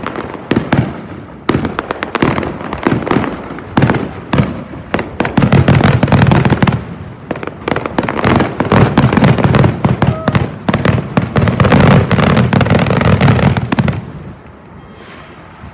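Fireworks display going off: a dense, rapid run of bangs and crackling that builds to its heaviest in the second half and stops abruptly about fourteen seconds in.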